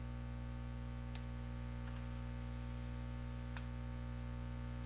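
Steady electrical mains hum with three faint clicks at the computer, spread over a few seconds, as commands are entered and windows are switched.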